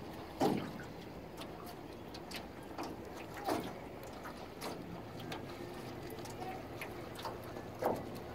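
Small waves lapping and slapping against an old aluminum canoe's hull, with irregular knocks and ticks. The loudest slaps come about half a second in, about three and a half seconds in, and near the end.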